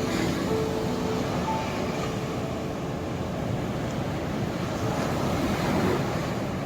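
Ocean waves washing on the shore: a steady rush of surf, with a faint low hum underneath.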